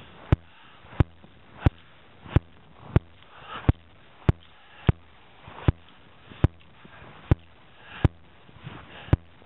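A climber's steps on hard snow and ice: a sharp click about every two-thirds of a second at a steady walking pace, with hard breathing at altitude between them.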